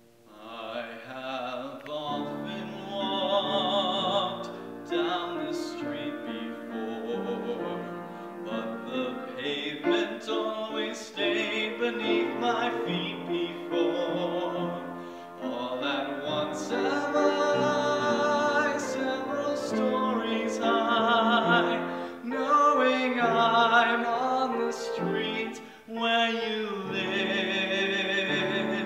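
A man singing with vibrato, accompanied by an upright piano.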